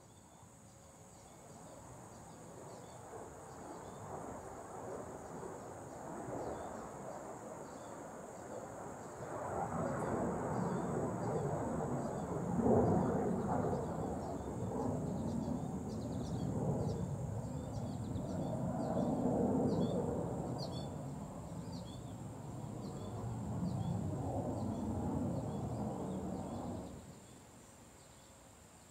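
A distant leaf blower running: a rushing noise that builds, swells and eases every few seconds, and stops abruptly near the end. Under it, crickets keep up a steady high trill, with short chirps repeating about once a second.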